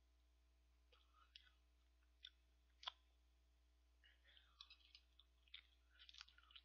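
Faint clicks and short scrapes of a metal spoon in a tub of ice cream and against the mouth while eating: a few single clicks, then a quicker run of them from about four seconds in.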